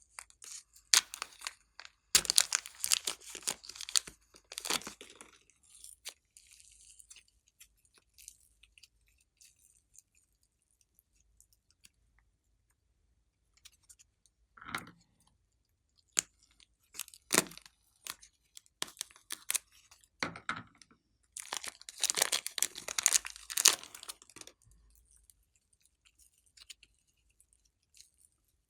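Glossy slime being squished and stretched by hand, giving sticky crackling and popping clicks in dense bursts near the start and about three quarters of the way through, with scattered single pops between.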